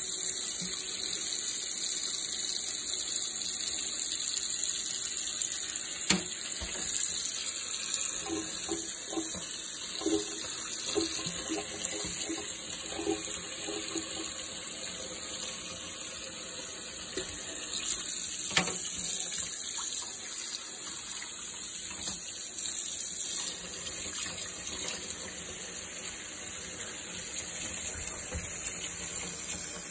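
Kitchen faucet running a steady stream into a stainless steel sink, splashing on the basin. There are two sharp knocks, about six seconds in and again at about eighteen seconds.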